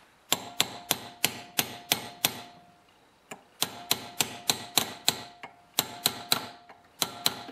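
Light hammer taps on a steel pin punch, in runs of several taps about three a second with short pauses between runs. Each tap has a brief metallic ring. The punch is driving and flattening a new Welch plug into the float-bowl side of a Tecumseh carburetor until it expands tight in its hole.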